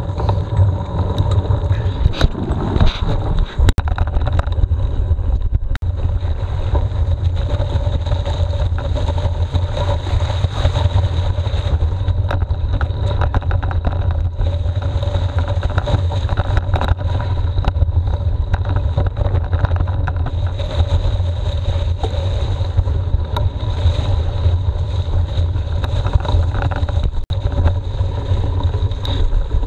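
Wind buffeting an action camera's microphone while riding a mountain bike, a steady low rumble with scattered clicks and rattles from the bike and tyres on rough ground.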